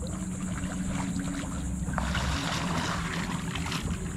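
Water sloshing and splashing around a boat, heaviest in the middle, over a steady low hum.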